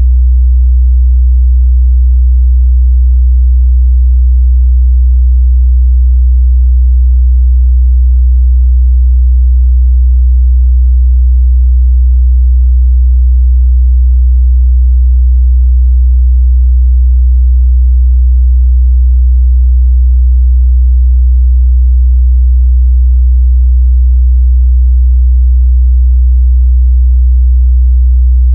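Continuous 62 Hz sine-wave test tone, a steady low hum that holds one pitch and level throughout. It is used to test a speaker's or headphone's mid-bass response.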